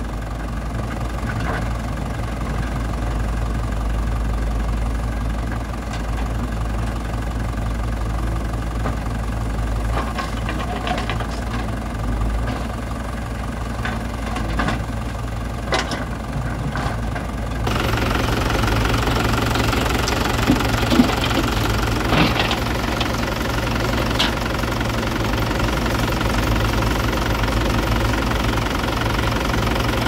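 Diesel engines of a Mahindra 575 DI tractor and a JCB 3DX backhoe loader running at a steady idle with a knocking diesel clatter. A few short knocks are heard as the backhoe works. The engine sound steps up louder and brighter a little over halfway through.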